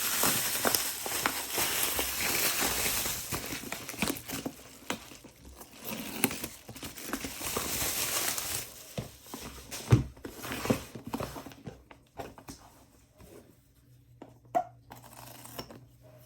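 Bubble wrap and packing tape crinkling and tearing as a package is unwrapped by hand, dense and continuous for the first eight seconds or so, then sparser rustles and handling noises. One sharp, loud crack about ten seconds in.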